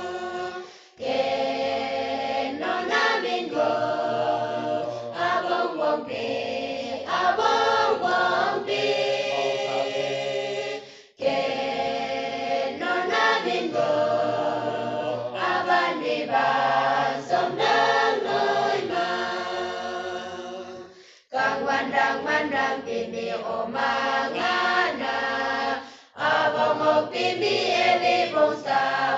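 Mixed choir of young men and women singing a Pangmi Naga hymn without accompaniment, in long phrases separated by brief breaks for breath.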